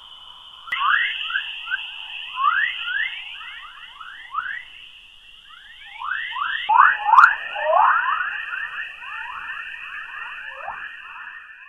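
Earth's electromagnetic "chorus" waves recorded by spacecraft instruments and played as sound: a dense stream of quick chirps like a dawn chorus of birds, over a steady high hiss. The chirps grow louder about halfway through.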